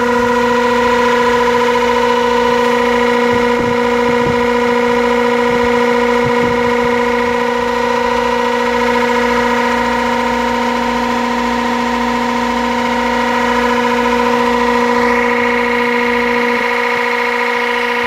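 Goodman heat pump outdoor unit running with a loud, steady droning tone with strong overtones; the tone shifts slightly near the end. The owner calls the unit so loud.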